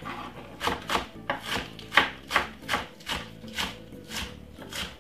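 Knife chopping spring onion on a cutting board: a run of quick, even knocks, about three a second.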